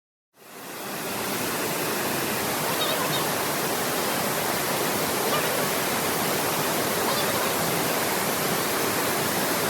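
Waterfall's steady rush of falling water, fading in from silence just after the start.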